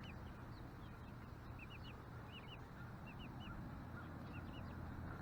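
Four-week-old chicks peeping: a steady run of short, high cheeps, several a second, over a low background rumble.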